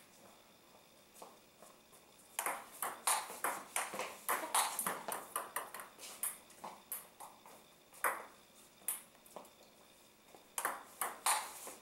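Table tennis ball clicking off paddles and bouncing on the table. The clicks come in a quick, irregular run, then as scattered single hits, and bunch up again near the end.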